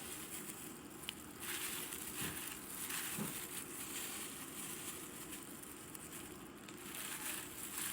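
Faint, irregular rustling and crackling of salad leaves being moved into a bowl, with a light click about a second in.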